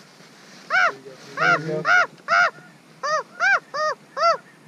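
Snow goose calls: one short honk after another, about two a second, each rising and falling in pitch.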